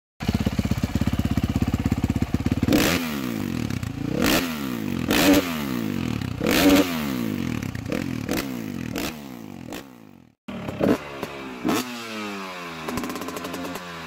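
Pedal-powered rail cart with metal wheels rolling on a short length of track: a rumbling rattle whose pitch rises and falls as it speeds up and slows, with repeated knocks and clatters. The sound breaks off briefly about ten seconds in and then the rolling and rattling resume.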